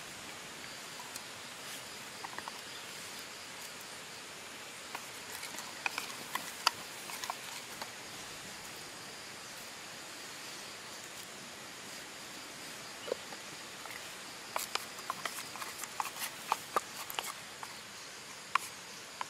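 Wooden spoon and hands working egg and shredded vegetables in a small steel mug: scattered clicks and taps, one cluster about six seconds in and a denser one from about fourteen seconds on. Under them runs a steady forest background hiss with a faint high insect drone.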